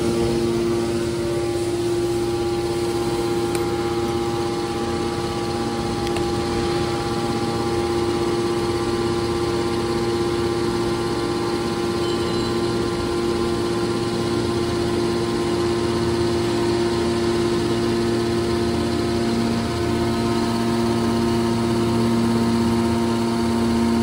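Hydraulic power unit of a scrap metal press baler running: the electric motor and hydraulic pump give a steady hum with a few held tones.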